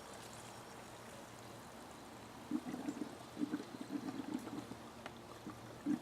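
Two-stroke oil and gas mix being poured from a container into a chainsaw's fuel tank, glugging in irregular gulps that start about two and a half seconds in.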